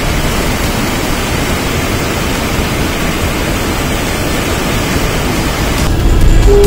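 Muddy mountain stream pouring over a rocky drop in a small waterfall: a steady rushing of water that cuts away near the end.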